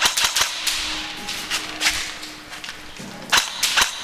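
Airsoft guns firing in a close-quarters exchange: a quick cluster of sharp cracks at the start, a few single shots in the middle, and another rapid run of cracks near the end.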